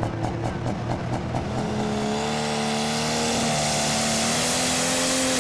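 Red International Pro Stock pulling tractor's diesel engine launching into a pull. It pulses at first, then the revs climb about two seconds in and hold high and steady under load, with a loud hissing rush over the top.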